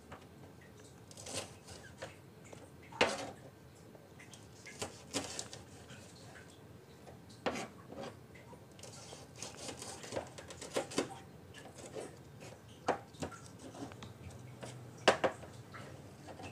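Kitchen knife cutting green chillies on a plastic cutting board: about a dozen sharp, irregular knocks of the blade striking the board, the loudest near the end.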